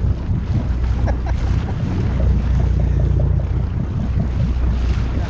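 Wind buffeting the microphone over the steady low drone of a sportfishing boat's engine running.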